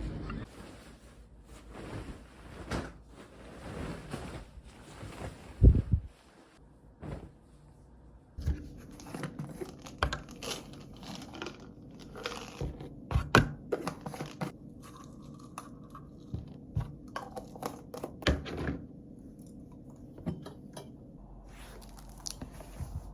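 Irregular clicks, taps and knocks of small objects being handled, a few of them louder thuds, in a small room.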